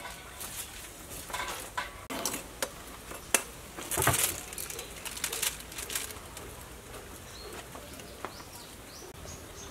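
Aluminium foil crinkling and rustling, with light clicks and knocks, as a foil-wrapped fish is handled and set down on a wire grill over a charcoal stove; the loudest rustle comes about four seconds in. A few faint bird chirps near the end.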